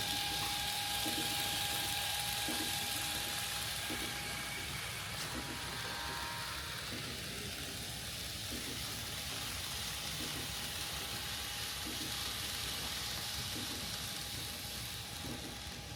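Kato N scale Shinkansen model train running on layout track: a steady hiss of wheels and motor with soft rail-joint clicks at an even pace.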